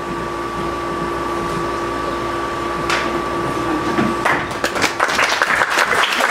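Theatre audience clapping, starting a little over four seconds in and building into full applause, after a steady two-tone hum that cuts off just before.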